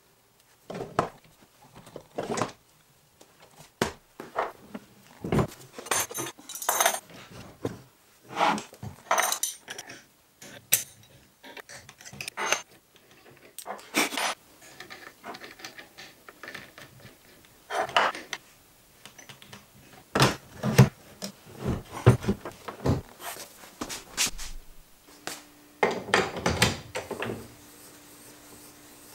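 Router bits and a wrench clinking and knocking as a router bit is changed in a router motor: a run of irregular metallic clinks and knocks.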